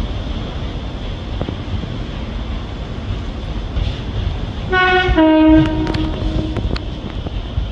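A ScotRail Class 156 diesel multiple unit rumbles slowly in over the pointwork. About five seconds in, a two-tone horn sounds once for about a second, a higher note falling to a lower one.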